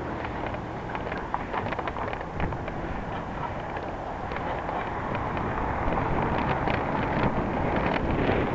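Wind rushing over the microphone of a camera riding on a moving bicycle, with road noise and many small rattles and clicks from the bike and its mount.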